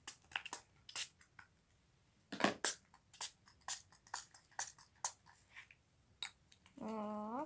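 Purple slime being pressed and patted by hand, making a run of sharp clicks and pops a few times a second, with one heavier squish about two and a half seconds in.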